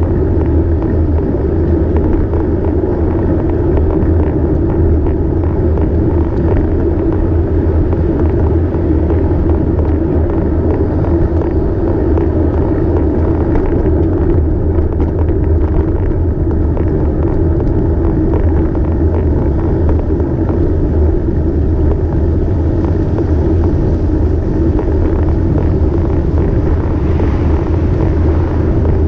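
Steady rumbling noise from a bicycle-mounted camera while riding: wind on the microphone and tyre and road noise, with no change in level.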